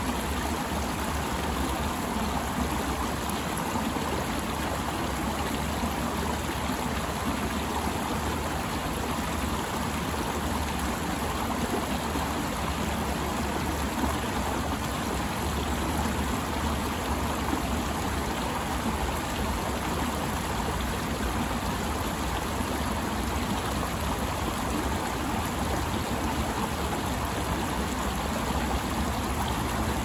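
Shallow rocky creek flowing over and between stones: a steady, even rush of running water.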